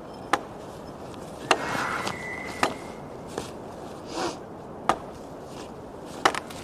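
About five sharp knocks and clicks, irregularly spaced, with a couple of soft rustling swells between them.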